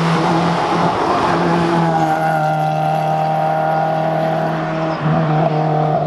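Hill-climb race car engine running hard at high revs as the car drives up the road, the engine note held nearly steady, with a brief dip about five seconds in.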